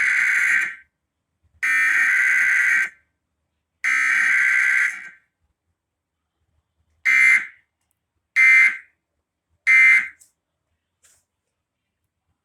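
Emergency Alert System SAME digital data bursts, a harsh buzzing warble. Three long header bursts of about a second each come first. After a pause of about two seconds come three short end-of-message bursts. No attention tone or voice message plays between them.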